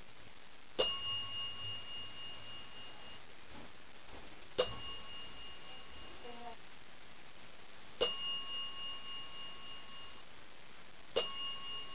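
Ghost-hunting "dead bell" dinging four times, spaced a few seconds apart, each ding a bright high ring that dies away over a second or two.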